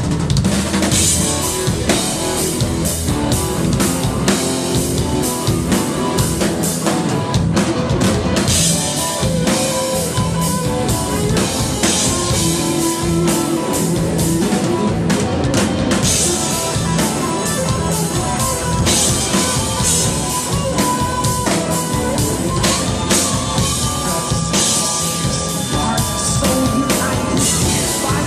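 Live rock band playing an instrumental passage: electric guitar over drum kit and keyboards, loud and steady.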